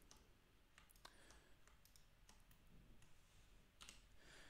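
A few faint, scattered clicks of a computer mouse and keyboard against near silence, as faces are selected and edited on screen.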